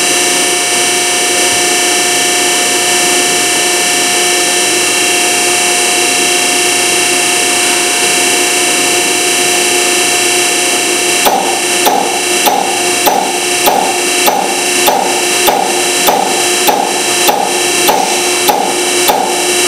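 Electronic unit injector test bench running a Caterpillar 3406E injector with a steady whine and hiss. About eleven seconds in, a sharp knock begins and repeats evenly a little under twice a second as the injector fires at the bench's startup speed.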